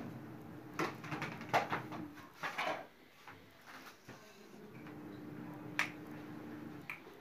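Pliers clicking and scraping on the terminals and sheet-metal body of an electric OTG oven as the heating rod's wire connections are tightened: a cluster of clicks in the first few seconds, then two sharper clicks near the end. A low steady hum comes and goes underneath.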